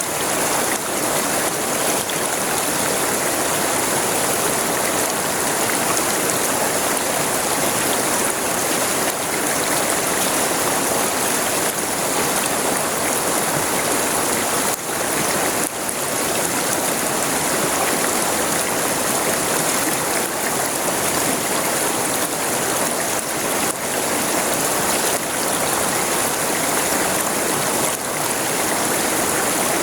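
A forest river flowing, a steady rush of running water close to the bank.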